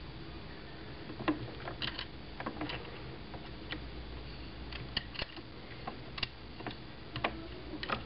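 Light, irregular clicks and ticks of small screws and a metal accessory rail being handled and threaded by hand onto a rifle's handguard, about a dozen small clicks spread through.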